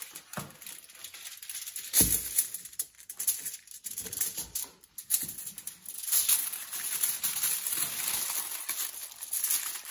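Aluminium foil crinkling and rustling as hands fold it around a whole fish, with a single thump about two seconds in.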